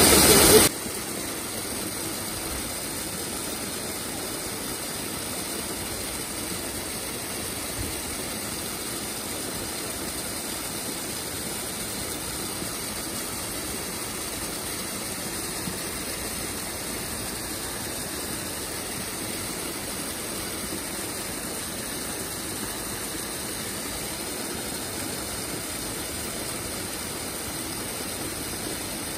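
Steady, even rush of a waterfall's falling water. A much louder rush at the very start cuts off abruptly under a second in.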